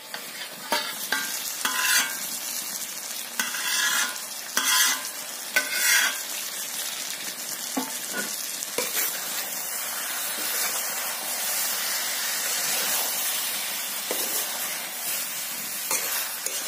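Pork curry with potatoes and pumpkin sizzling in a black kadai, frying in the pork's own rendered fat with no oil added. Several short scraping stirs come in the first six seconds, then a steady sizzle.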